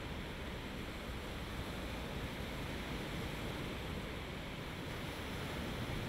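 Small lake waves breaking and washing onto a sandy beach: a steady, even rush of surf.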